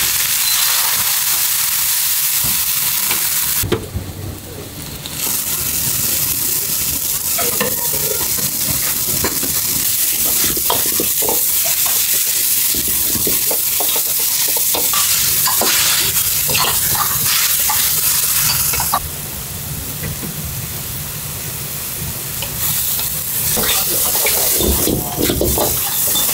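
Bean sprouts and vegetables sizzling in a hot wok over a gas flame as they are stir-fried, with a metal ladle scraping and clicking against the wok. The sizzle dips briefly about four seconds in and is quieter for a few seconds near the end.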